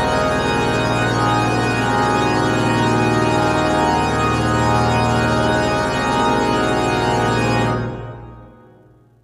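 Church organ sounding a full, held chord, which dies away over about the last second and a half.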